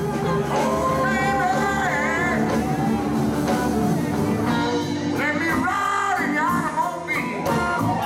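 Live blues band playing, with electric guitar, bass, keyboard and saxophone behind a lead singer.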